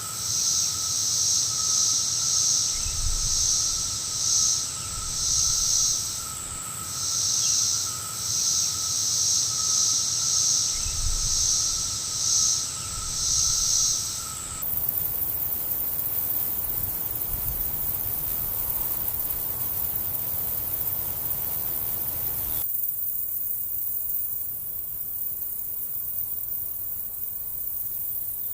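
Insects chirping in quick repeated pulses over a steady high whine. About halfway through this stops abruptly, giving way to an even hiss that thins out later.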